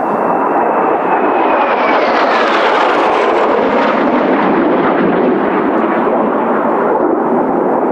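Kawasaki T-4 jet trainer passing close by, its turbofans loud throughout; the engine whine falls in pitch as it goes past, about two to three seconds in.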